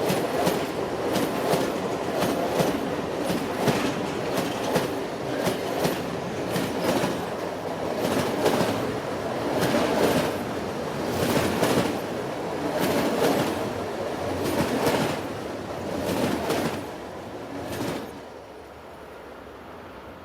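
Train running on the track, its wheels clattering over rail joints in a repeated clickety-clack over a steady rumble. The sound fades and drops away about 18 s in, leaving a faint hiss.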